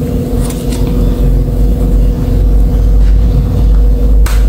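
Steady electrical hum of a plugged-in hot-wire ribbon-sealing machine, a low rumble with a constant buzzing tone over it. A short sharp scratchy noise breaks in near the end.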